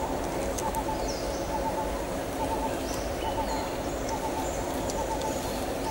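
Forest ambience: a steady hiss with birds calling. A short warbling note repeats in runs at one pitch, with thin high chirps above it.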